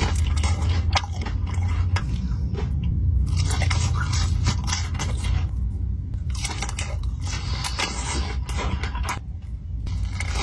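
Close-miked eating of a Chipotle burrito: bites and chewing with many small wet clicks and crackles, coming in several bursts with short pauses between them, over a steady low hum.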